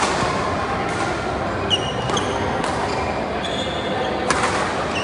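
Badminton play in a large hall: a few sharp racket-on-shuttlecock hits, irregularly spaced, with short high squeaks of shoes on the court mat over a steady background of hall chatter.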